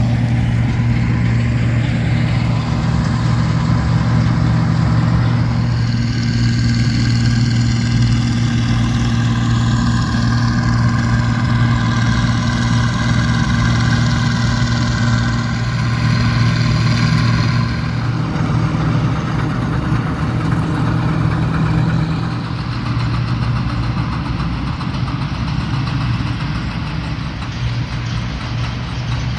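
Bizon Super Z056 combine harvester's diesel engine running steadily under load, with a higher whine from the machinery over the middle stretch; the sound gets a little quieter in the last third.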